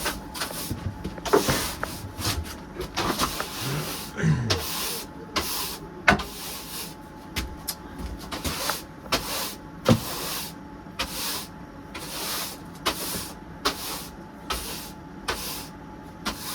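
Broom sweeping sawdust and wood cuttings off a floor: regular brushing strokes, a little under two a second, with a few sharp knocks among them.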